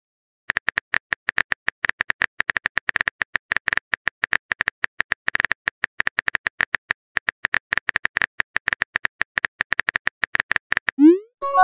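Smartphone keyboard typing sounds from a texting app: a rapid, even stream of short taps, several a second. Near the end they give way to a rising swoosh and a short chime as the message is sent.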